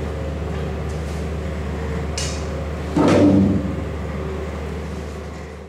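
A steady low hum with one sudden loud knock about three seconds in that dies away over about half a second, preceded by a brief hiss.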